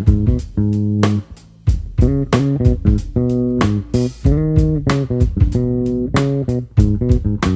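Instrumental break in a jazz song: plucked guitar chords over a bass guitar line, with a new chord struck every half second or so.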